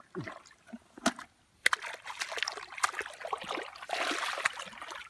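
Shallow muddy water sloshing and splashing: a few sharp splashes with a brief hush at first, then from about two seconds in a busy run of sloshing and splashing.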